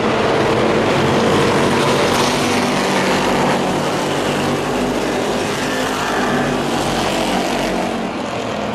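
A pack of short-track pickup race trucks running at speed around the oval, their engines blending into one steady drone that eases slightly near the end.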